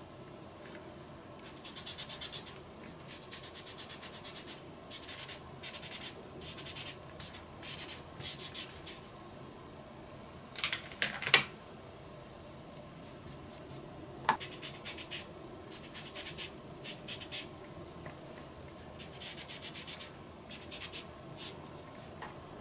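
Folded cotton pad rubbing pastel powder onto paper through a cut paper stencil, in repeated short scrubbing strokes with brief pauses between them. One sharper, louder scrape comes about eleven seconds in.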